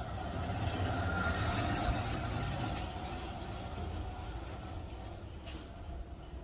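A motor vehicle passing by with a low engine rumble, loudest about one to two seconds in, then slowly fading.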